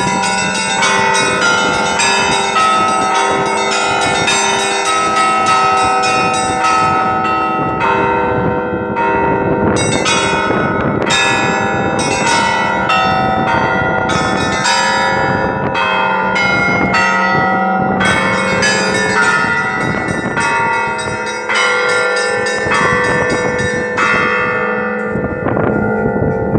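Russian Orthodox church bells rung at Easter: many bells struck in quick succession at several pitches over the lasting hum of a deep bell, in a continuous festive peal. The ringing stops abruptly at the end.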